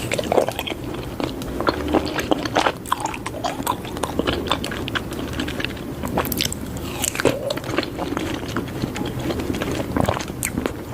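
Close-miked chewing and biting of papaya, a steady run of short mouth clicks and smacks.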